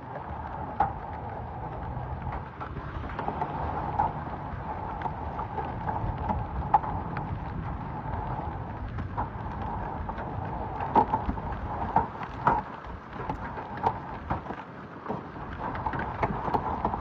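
Hailstorm: a steady rush of falling hail and rain, with many sharp separate hits of hailstones striking a surface.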